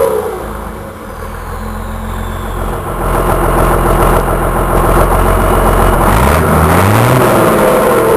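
Volkswagen 14.210 truck's turbo diesel engine settling back to idle, with a faint turbo whistle falling away; it is then revved up and down in quick blips near the end. The turbo intake wears a comb-style screen meant to make it whistle.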